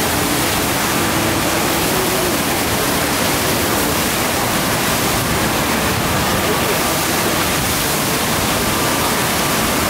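Steady rush of water from a FlowRider sheet-wave machine, a thin, fast sheet of water pumped up over its padded wave surface.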